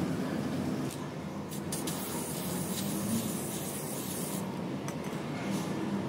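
Aerosol can of chrome spray paint hissing: a few short spurts, then one sustained burst of about three seconds starting about a second and a half in, over a steady low background noise.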